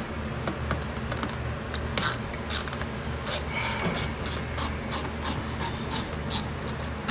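Hands and a tool working the clamp where a cold-air intake tube meets a throttle body, making many light, irregular clicks and rattles of metal and plastic from about two seconds in, over a steady low hum.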